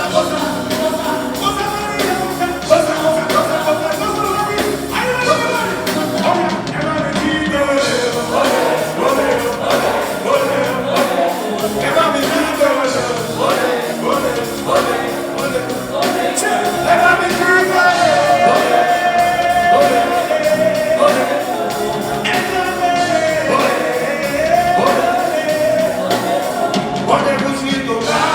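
Live music: a singer's melody over a full band, played loudly without a break.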